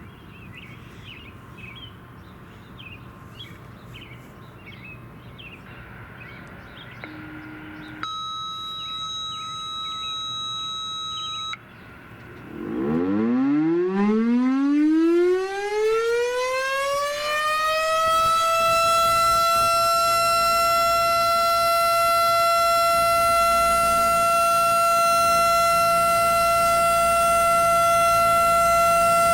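Federal Signal STH-10 outdoor warning siren starting up for a test: it winds up from a low pitch in a rising wail over about five seconds, then holds a steady, loud alert tone. Before it starts, a steady tone sounds for about three seconds.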